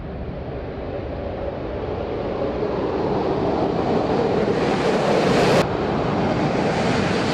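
Sukhoi Su-24M jet's engines, a broad rushing noise that grows steadily louder and brighter as the aircraft approaches. It drops off suddenly about five and a half seconds in, then builds again.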